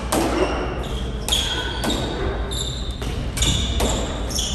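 Squash doubles rally: the ball is struck by rackets and smacks off the court walls, making a run of sharp hits about every half second. Short high squeaks of court shoes on the hardwood floor follow several of the hits.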